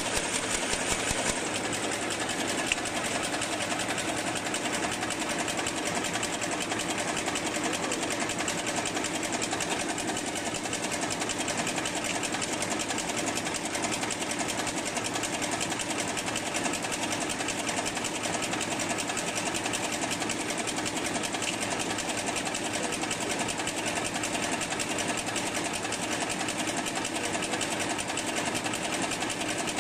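LSD-400B automatic high-speed paper bag making machine running at production speed: a fast, even mechanical clatter that stays steady throughout.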